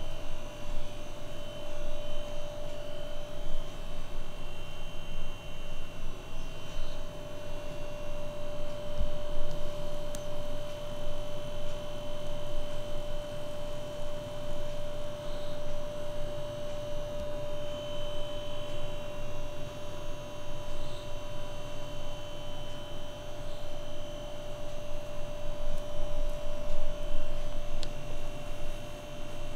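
A steady hum with one constant mid-pitched tone that holds throughout, over a low even rumble.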